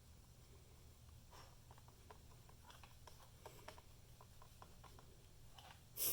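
Faint small clicks and taps of hand work on a truck door latch assembly, with one sharper knock near the end.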